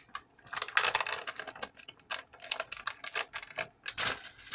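Black pepper packet being handled: a run of rapid, dry crackles and clicks that starts about half a second in and lasts nearly four seconds.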